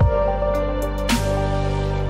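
Background music with sustained held notes, a low drum thump at the start and a cymbal-like wash about a second in.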